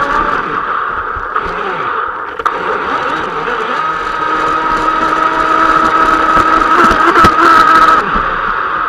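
R/C speedboat's motor running at speed with a steady whine, mixed with the hiss of spray and water rushing past the hull, heard from on board the boat. The whine grows louder in the second half.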